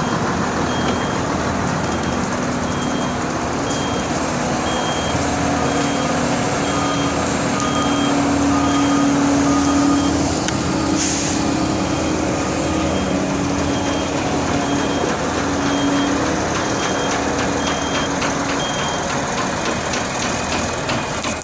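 A heavy truck's back-up alarm beeping steadily, high and evenly spaced a little over once a second, over diesel engines running at a concrete pour, with a second lower-pitched back-up alarm joining through the middle. A short air hiss, like an air-brake release, about halfway through.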